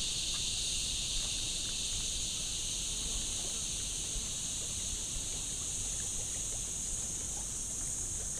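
Chorus of insects, likely cicadas, giving a steady, high, even buzz with no break, over a faint low rumble.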